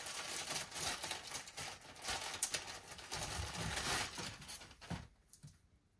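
Clear plastic packaging bag crinkling and rustling as a garment is worked out of it, dying away near the end.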